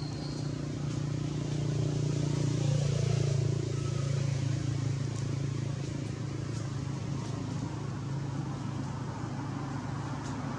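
Steady low drone of an engine running, swelling about two seconds in and easing back after a few seconds.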